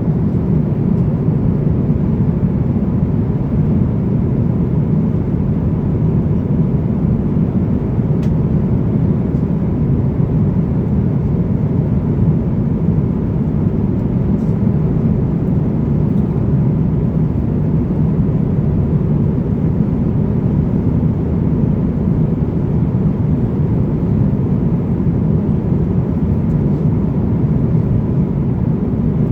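Steady low rumble of airflow and engines heard inside the cabin of an Airbus A350-900 in flight, unchanging throughout, with a faint steady hum above it.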